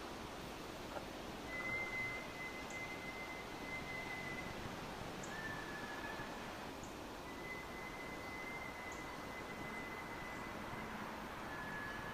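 An unidentified whistling sound over a steady background hiss: long, steady high whistles lasting a couple of seconds each, alternating with shorter whistles at a slightly lower pitch.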